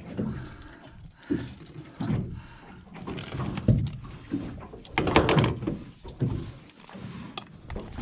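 Irregular knocks and thuds, with a few short rustling bursts between them; the loudest is about five seconds in.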